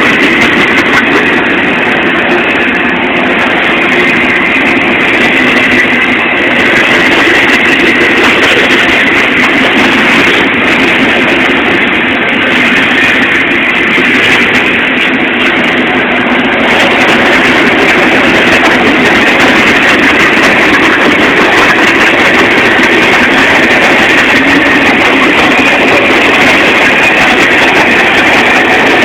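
A long freight train's cars (double-stack container cars, tank cars and autoracks) rolling past at close range: the steady, loud running noise of steel wheels on rail.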